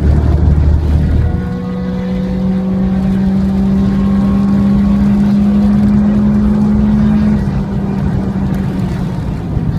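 Car engine running hard under acceleration, its pitch climbing slowly and steadily for several seconds, then dropping back with the sound getting quieter about seven seconds in as the throttle eases.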